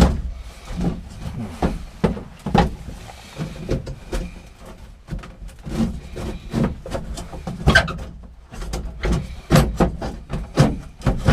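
Irregular knocks, clunks and scrapes of hand work in a small room as a cabinet unit is worked loose, a dozen or so sharp knocks among softer thumps.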